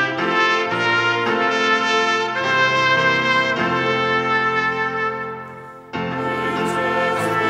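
Instrumental music with a brassy, trumpet-like tone, playing steady held chords that change about once a second. It fades away about five and a half seconds in, then a new phrase starts abruptly.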